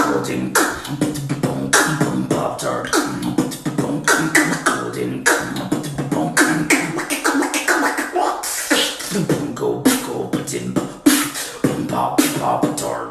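Human beatboxing: a fast stream of vocal kick, snare and hi-hat sounds mixed with hummed or sung bass tones.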